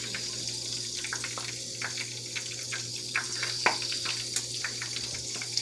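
Hot oil sizzling in a deep fryer: a steady hiss with irregular crackles and pops, one sharper pop about two-thirds of the way through.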